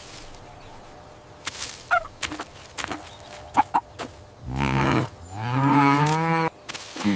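A cow mooing once, a long low call about four and a half seconds in, after a few light clicks and knocks.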